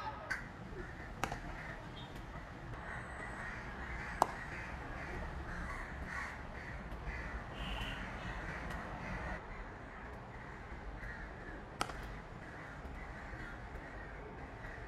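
Crows cawing repeatedly in the background, with a few sharp cracks of a cricket bat striking the ball, the loudest about four seconds in and another near twelve seconds.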